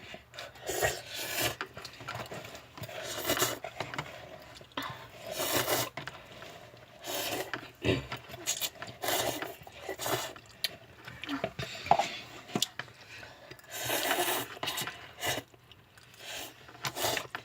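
Ramen noodles being slurped and chewed, a run of noisy slurps coming every second or two.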